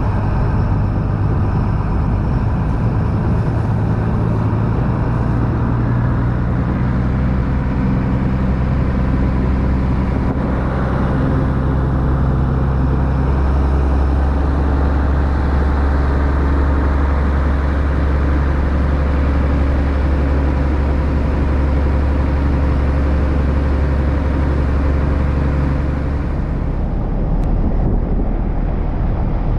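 Ferry boat's engine running steadily under way, with the rush of water churning in its wake.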